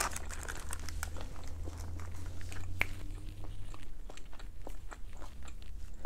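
Person chewing a crispy fried taquito: a steady run of small crunches and mouth clicks, picked up close by a clip-on microphone.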